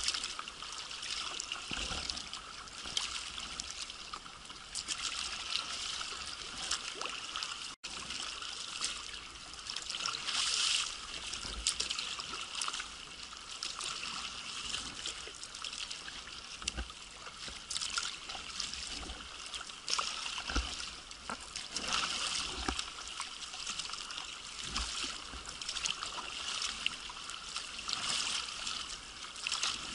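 Choppy sea water splashing and trickling around a sea kayak's hull and deck as it is paddled into waves, with irregular louder splashes.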